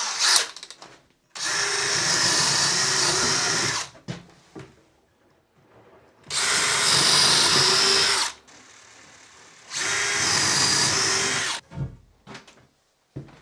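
Cordless drill running at full speed in three bursts of about two seconds each, boring holes through a timber stud, with a few light knocks near the end.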